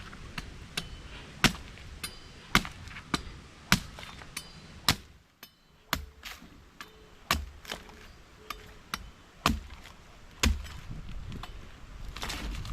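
A machete chopping coconuts: a run of sharp, hard strikes at an uneven pace, roughly one or two a second, with a short pause about five seconds in.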